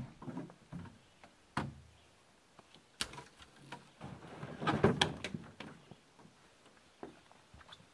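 Knocks and thumps of camping gear being handled in a canoe hull, with the rustle of a bag being lifted out. A few separate knocks, then a busier, louder stretch of knocking and rustling a little past the middle.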